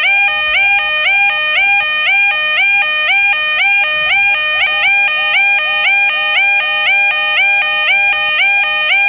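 Electronic level crossing warning alarm sounding continuously, a buzzy tone that alternates rapidly between two pitches in an even, unbroken repeating pattern, each note sliding up slightly as it starts.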